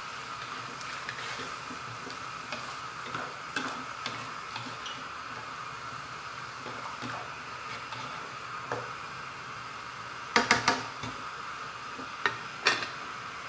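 A black spatula stirs chicken livers and freshly added coconut milk in a non-stick pan, with soft scrapes and clicks over a steady hiss from the sauce cooking on the flame. About ten seconds in, a quick run of sharp knocks of the spatula against the pan, then two more single knocks near the end.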